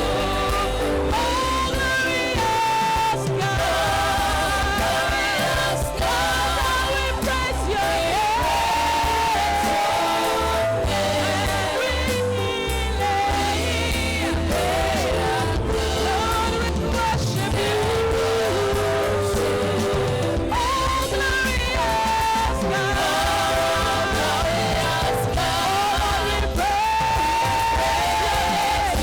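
Worship song: singing carried over band accompaniment with a steady bass underneath, the voices holding and bending long notes.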